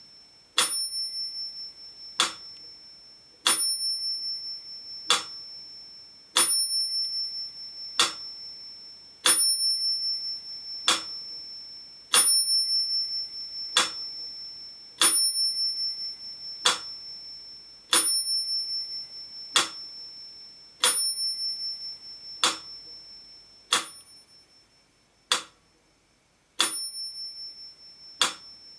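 Mechanical pendulum metronome ticking at 40 beats a minute, a sharp tick about every second and a half, with its bell ringing on every second beat. The gaps between ticks alternate slightly longer and shorter, so the beat is a little uneven.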